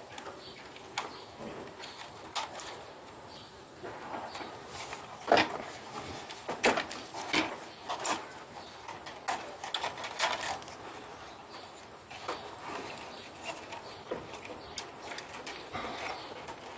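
Irregular clicks and knocks of plastic wiring plugs being handled, pulled and pushed on a dishwasher's control board, the loudest about five seconds in.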